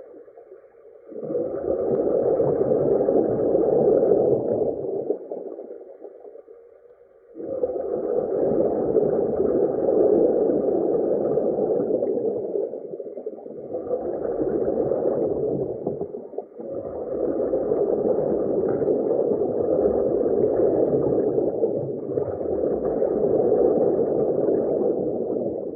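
Underwater ambience: a dull, muffled rush and gurgle of water that swells and fades in long surges a few seconds apart, dropping almost to nothing for a moment about six seconds in.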